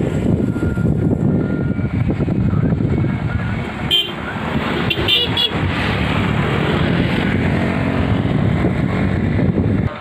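A motor vehicle engine running steadily close by, with a few short high beeps about four and five seconds in.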